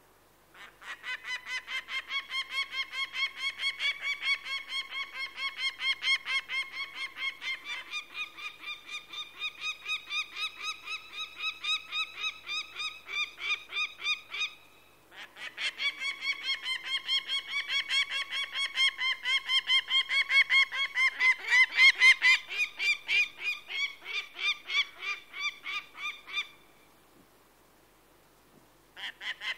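Peregrine falcon giving its harsh, rapid cacking call, a fast even series of about four notes a second. Two long runs are broken by a short pause, and a third run starts near the end after a longer gap.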